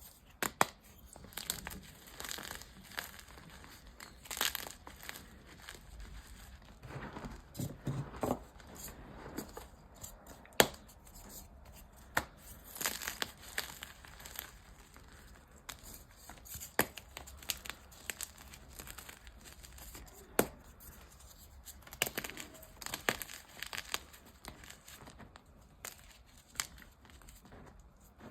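Dyed gym chalk being crunched and crumbled: irregular dry crackling and crumbling, with a few sharp snaps.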